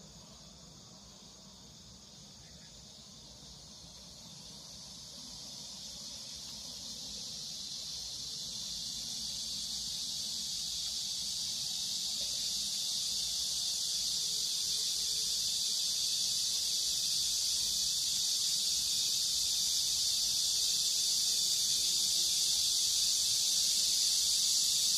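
A steady, high-pitched drone of insects singing in chorus, growing gradually louder from about four seconds in to the end.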